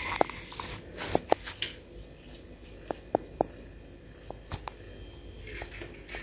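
Handling noise close to a phone's microphone: light rustling and about eight soft taps in small clusters of two or three.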